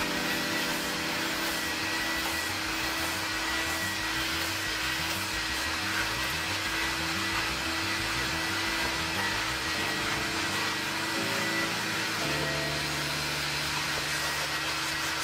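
Carpet extractor's vacuum motor running steadily, a whine over a rushing hiss, as its clear extraction wand is drawn over automotive floor carpet. Background music with shifting bass notes plays underneath.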